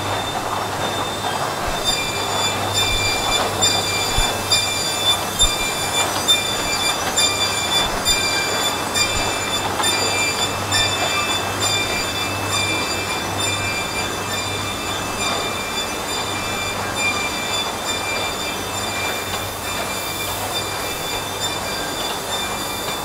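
Laminate flooring production-line machinery running steadily, with a low hum and several high whining tones that pulse in a quick, regular rhythm.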